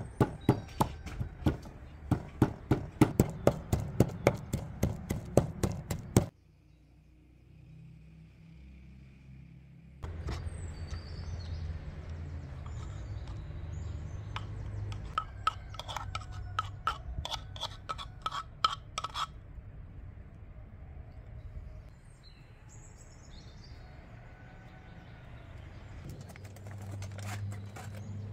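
Wooden pestle pounding in a wooden mortar, about three knocks a second, stopping about six seconds in. Later comes a series of lighter taps and scrapes as a spoon works the pounded mixture out of the mortar.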